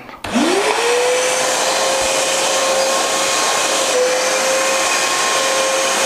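TEXUM TVC-30 1800-watt wet and dry vacuum cleaner switched on: its motor spins up with a rising whine in about half a second, then runs steadily, a high whine over a loud hiss of rushing air, as it sucks up soapy water from the floor. The pitch dips briefly about four seconds in.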